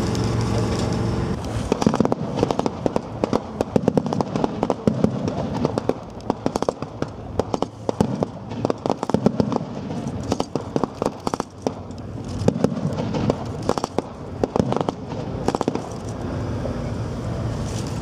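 Small-arms blank gunfire in a mock battle: rapid, irregular shots and short bursts popping from about a second and a half in until near the end. A heavy military truck's diesel engine runs underneath and is heard alone at the start and end.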